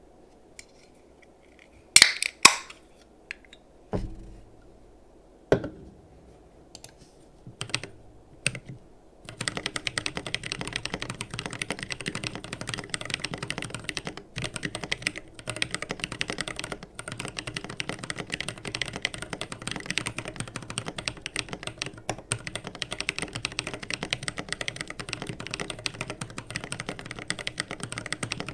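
Keebio Nyquist mechanical keyboard with AE Naevy switches: a few separate key clacks, then from about nine seconds in, continuous fast typing.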